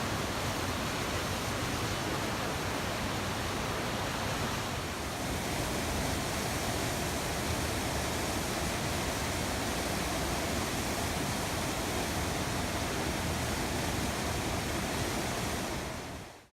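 Steady rushing water, fading out at the very end.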